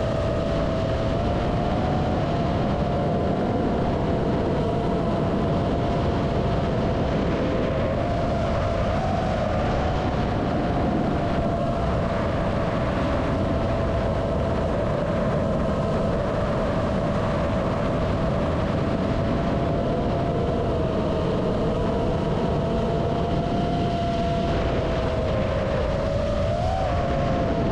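FPV freestyle quadcopter's four iFlight Cyber Xing 2207.5 1777kv brushless motors and props whining at a steady cruise pitch, with small pitch wobbles as the throttle shifts, heard over rushing air on the onboard camera's microphone.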